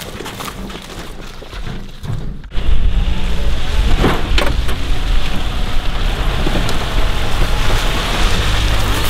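After a sudden cut about two and a half seconds in, a steady loud rumbling noise as an SUV drives across a stubble field towing a twin-axle trailer.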